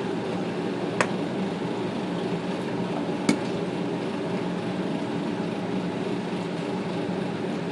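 Two sharp clicks, about a second in and again a little past three seconds, as a screw is started into the Smith Corona electric typewriter's mechanism, over a steady hum.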